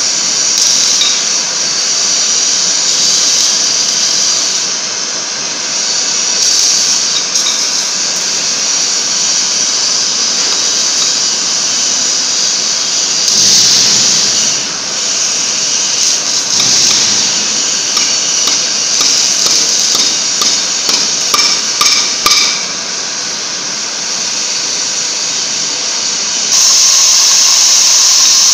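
Three-torch oxy-fuel flame cutting head on a CNC gantry cutter hissing steadily as it burns into thick steel, with a run of sharp crackles about two-thirds of the way through. Near the end the hiss jumps suddenly louder as the cut gets going and sparks spray from the plate.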